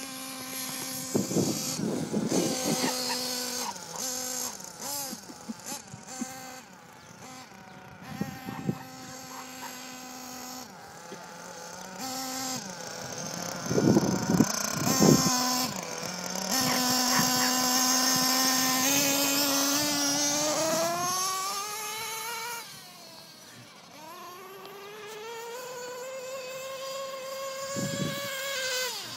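Gas-powered RC truck's small two-stroke engine buzzing, holding a steady pitch at times and revving up and down, with a long rising rev past the middle and another near the end. A few short, loud bursts break in, the loudest about halfway through.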